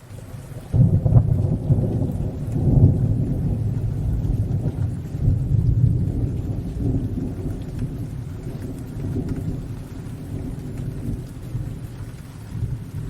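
A low rolling thunderclap breaks in under a second in, loudest over the first few seconds, then slowly rumbles away over steady rainfall.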